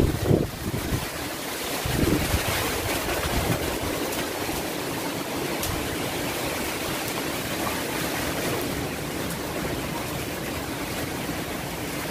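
Typhoon-force wind blowing through trees, a steady rushing noise with louder gusts at the start and about two seconds in.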